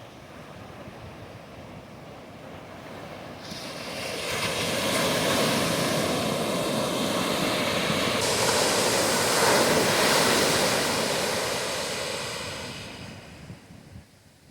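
Ocean surf on a beach: a wave swells in after a few seconds, breaks and washes loudly for several seconds, then fades away near the end.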